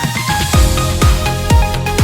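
Electronic dance music with a steady thumping bass beat and sustained synth notes.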